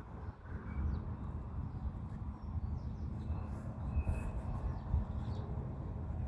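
Quiet outdoor background: an uneven low rumble with a few faint, short bird chirps.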